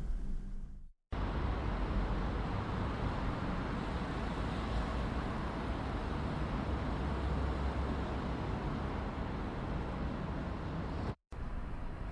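Apartment interior ambience: a steady wash of distant urban traffic noise with a low rumble heard through the building. It is broken by a brief drop to silence about a second in and again near the end, where one ambience loop ends and the next begins.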